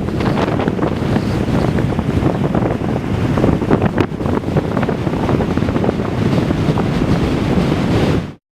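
Gale-force wind buffeting the microphone in loud, gusty blasts. It cuts off abruptly near the end.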